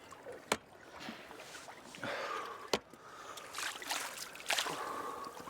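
Water sloshing and splashing around a small rowed inflatable boat, with two sharp knocks about two seconds apart.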